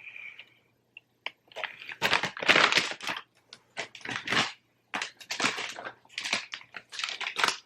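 Crinkly chip bag being handled: a run of irregular crackling rustles that starts about a second and a half in.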